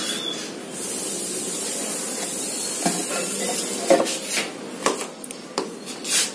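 A steady hiss for about two seconds, followed by several sharp knocks and clicks as spice jars and steel bowls are handled on a table.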